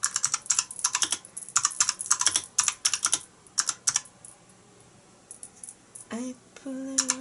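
Typing on a computer keyboard: a quick run of keystrokes for about four seconds, then a few scattered taps.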